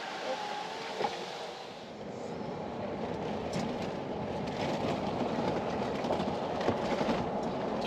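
Steady rumbling vehicle noise that grows louder about two seconds in.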